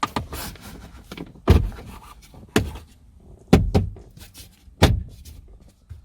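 Plastic dashboard trim of a Toyota HiAce being pushed and knocked into its retaining clips, about five sharp knocks roughly a second apart.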